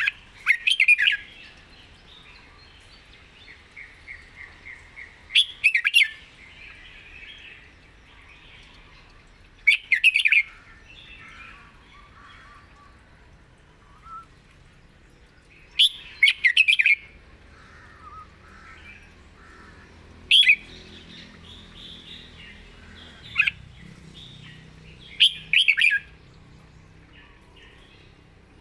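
Caged red-whiskered bulbul singing: about seven short, loud whistled phrases a few seconds apart, with soft twittering between them.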